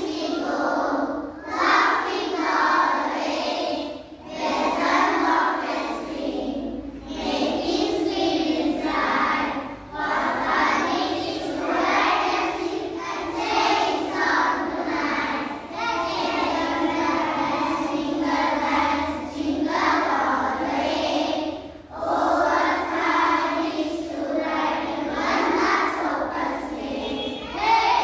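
A group of young children singing together, in phrases of a few seconds each with short breaths between them.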